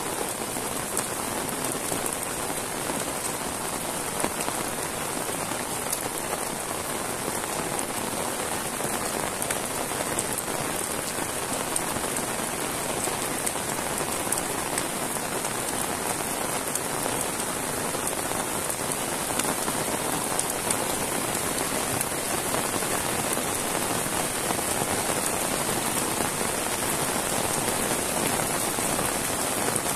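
Heavy rain falling steadily, a dense even wash of sound full of fine drop ticks.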